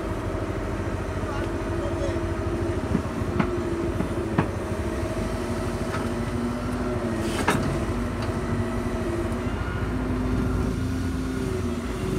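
Doosan excavator's diesel engine running steadily, its pitch shifting slightly as the hydraulics take load, with a few sharp knocks from the bucket as it digs and unloads soil; the loudest knock comes about seven and a half seconds in.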